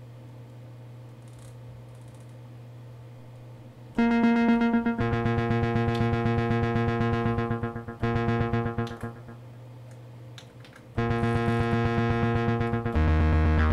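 Kurzweil PC3 synthesizer playing a pulse-width-modulation patch of two slightly detuned layers through delay, reverb and synth distortion. A quiet low tone is held for the first few seconds, then loud sustained notes with a buzzy tone come in about four seconds in and change at about five, eight, eleven and thirteen seconds.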